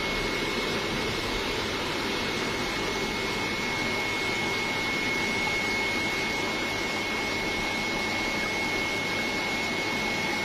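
Steady machine noise: an even rushing hum with a constant high-pitched whine running through it.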